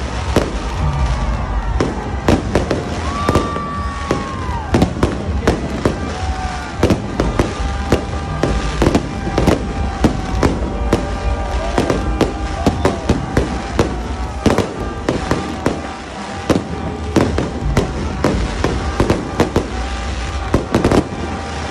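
Aerial fireworks bursting overhead: a rapid, irregular run of bangs and crackles, with a drawn-out whistle that drops in pitch about four seconds in.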